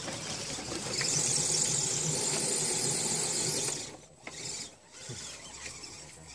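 Axial RC rock crawler's electric motor and gear drivetrain whining steadily under load as it climbs over rock, stopping abruptly about four seconds in. Softer, uneven sound and a few small clicks follow.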